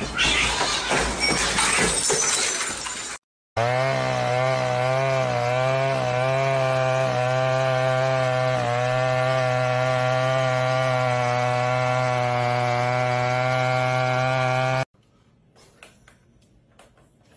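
A loud rattling clatter for about three seconds, like things being knocked about, cuts off abruptly. After a brief gap, a long steady buzzing drone holds one pitch for about eleven seconds, wavering slightly at first, then stops suddenly, leaving only faint small ticks.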